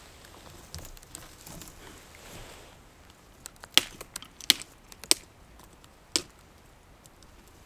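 Faint background hush with four sharp clicks in the second half, spaced under a second or so apart.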